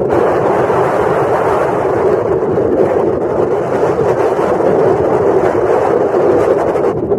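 Steady rushing noise of a vehicle travelling at speed, heard from on board: wind and running noise with no breaks or distinct knocks.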